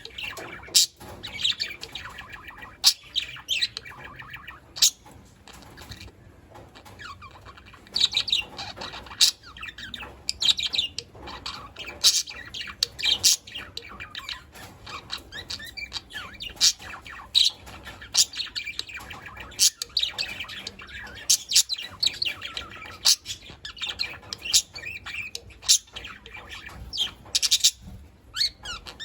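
A flock of budgerigars chattering continuously, a busy mix of warbling and many short, sharp chirps and squawks.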